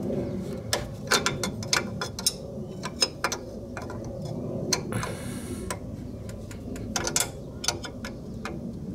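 Metal clicking and ticking of a hook spanner wrench working the lower lock ring of an Öhlins coilover as it is turned tight, irregular clicks a few to the second over a steady low hum. A brief hiss comes about five seconds in.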